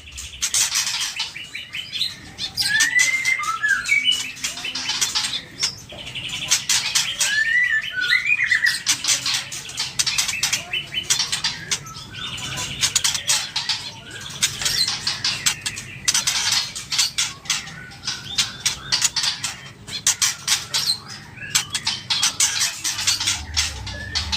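White-rumped shama (murai batu) calling and singing in rapid bursts of harsh, clicking rattles, with a few short sliding whistles mixed in.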